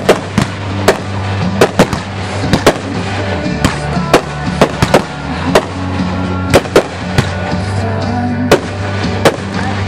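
Aerial fireworks shells bursting: an irregular run of sharp bangs, roughly two a second, with music playing underneath.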